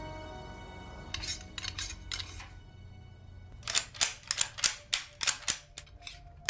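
Sharp clicks and clacks: a few about a second in, then a quick run of about ten, roughly three a second, over a faint sustained music tone.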